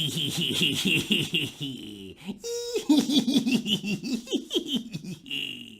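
A voice laughing at length in fast, repeated 'ha' syllables, pausing briefly a little over two seconds in for a short held note, then laughing on until it trails off at the end.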